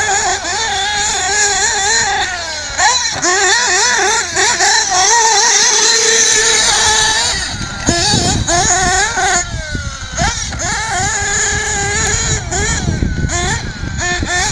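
SH PT2010-XBKG .21 nitro engine with an SH 2075 tuned pipe in a Z-Car ZMXT-8 RC truggy, revving up and down in quick rises and falls as the truck accelerates and brakes around the track. It eases off briefly about eight seconds in. The engine is being tuned in with the throttle limited to about 75%.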